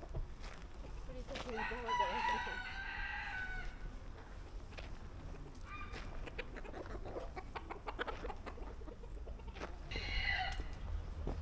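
A rooster crows once, a long call lasting about two seconds beginning about a second in, followed later by a couple of short calls from the chickens.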